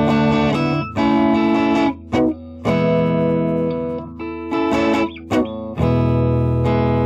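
Guitar music: held, ringing chords that break off briefly several times and start again.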